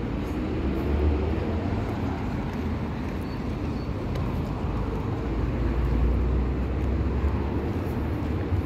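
Steady low rumble of city street traffic, with no clear single vehicle standing out.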